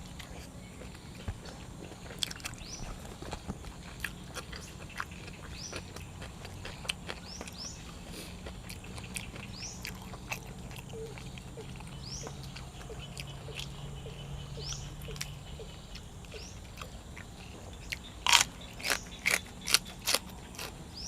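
A person chewing food close to the microphone, with scattered mouth clicks and smacks throughout. About eighteen seconds in comes a run of five or six louder, sharp crunches.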